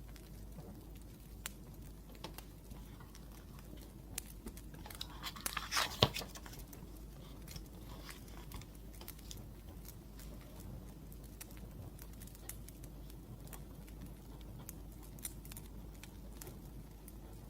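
Wood fire crackling, with scattered sharp pops over a low steady hiss; about five to six seconds in a brief flurry of crackles ends in the loudest pop.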